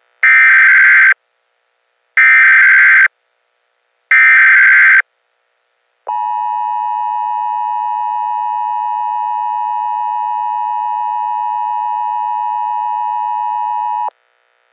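Emergency Alert System broadcast tones: three short bursts of the digital SAME header code, each about a second long and two seconds apart. About six seconds in, the steady two-tone EAS attention signal starts, holds for about eight seconds and cuts off abruptly.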